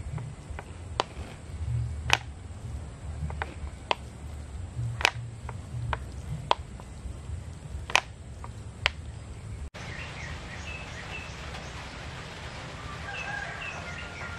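About a dozen sharp, irregular clicks over a low rumble. Then, from about ten seconds in, small birds chirping in short repeated notes over a steady hiss.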